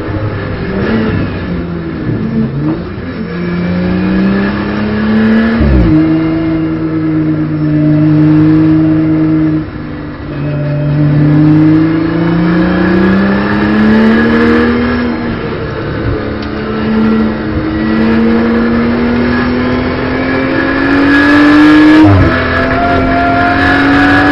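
The BMW M240i Racing Cup's turbocharged straight-six, heard from inside the cockpit, pulls hard with its pitch climbing. The revs drop sharply at gear changes about six seconds in and again near the end, with a brief lift of the throttle around ten seconds.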